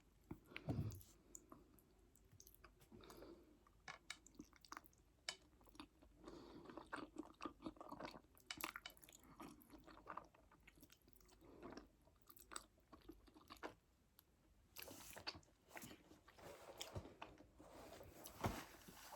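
Faint close-miked chewing and wet mouth sounds of a person eating fettuccine Alfredo, with scattered small clicks and smacks.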